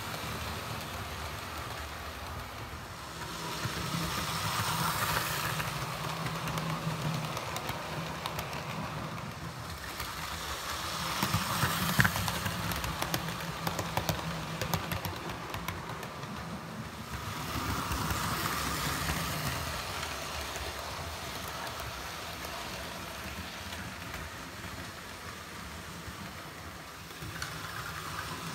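Hornby OO-gauge model train, a 9F 'Evening Star' steam locomotive hauling coaches, running on sectional track on a tiled floor: a steady motor hum with the wheels rattling over the track. It swells three times as the train comes close past, with a sharp click about twelve seconds in.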